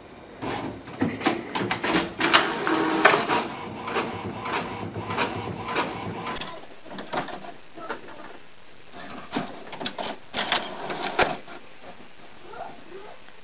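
Printer running, its mechanism clicking and rattling in quick, uneven bursts. The sound changes abruptly about six seconds in, then more clusters of clicks follow.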